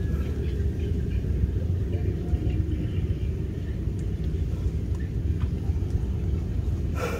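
Steady low rumble, with a short sharp click near the end.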